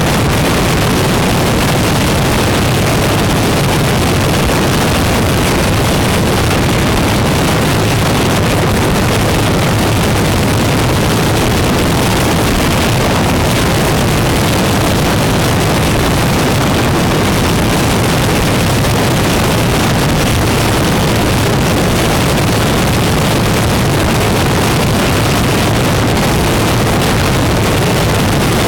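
Motorcycle riding at road speed: steady wind rushing over the bike-mounted camera's microphone, mixed with the loud, steady drone of the motorcycle's engine.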